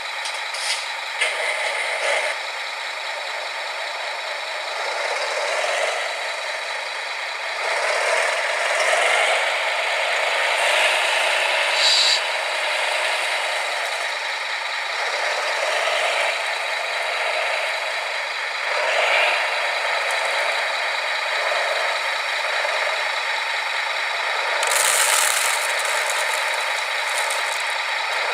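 Radio-controlled model construction machines running: small electric motors and gearboxes whining and rattling, with a thin steady whine and the load rising and falling every few seconds.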